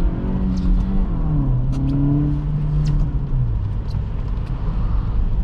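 A 2023 Acura Integra driving on the road: tyre and road rumble under the 1.5-litre turbocharged four-cylinder engine, whose note drops in steps about a second in and again past three seconds.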